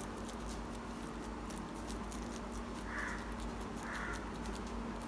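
A crow cawing twice, about a second apart, in the second half. Under it, faint crackling clicks from a hand patting vada dough flat on a plastic sheet, and a low steady hum.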